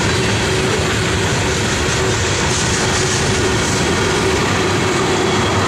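Union Pacific mixed freight train's tank cars rolling past at speed: a loud, steady noise of steel wheels running on the rails.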